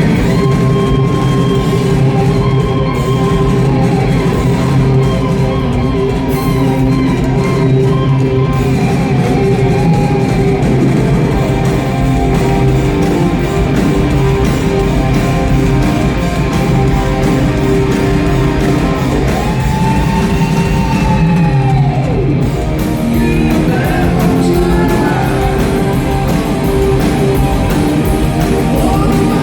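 A live rock band playing loudly, led by electric guitar. Partway through, a long held note bends up and then slides back down.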